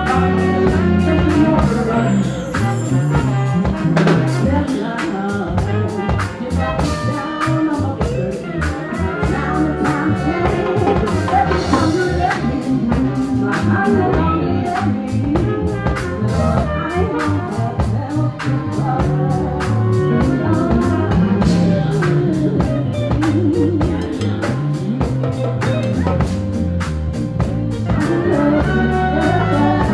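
Live band playing an instrumental passage: drum kit keeping a steady beat under horns, guitar and bass.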